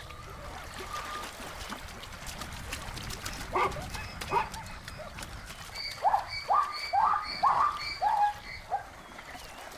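Plains zebras calling: two short barks, then a run of about six yelping barks at roughly two a second in the second half.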